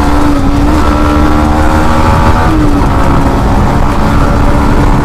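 Motorcycle engine running hard at high speed, its pitch holding steady and stepping up slightly about halfway through, with heavy wind rumble on the microphone.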